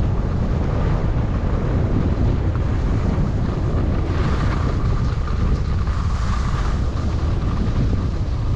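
Wind buffeting the microphone of a skier moving downhill, with a heavy steady rumble. Over it, the hiss of skis sliding on snow swells twice in the middle.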